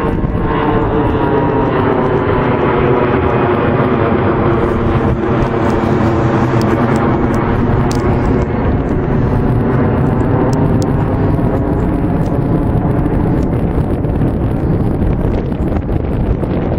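Airbus A340-312 four-engine jet airliner at take-off power: a loud, steady jet engine noise with several engine tones that slowly slide in pitch as the aircraft moves past.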